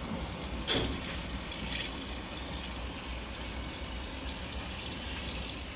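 Steady, even hiss with one sharp click about a second in.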